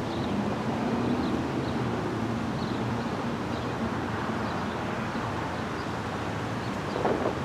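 Steady outdoor background rumble with faint, scattered bird chirps. A few gusts of wind hit the microphone near the end. No bells are ringing yet.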